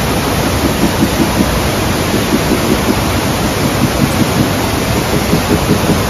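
Inglis Falls in heavy flow: a loud, steady rush of water plunging onto boulders.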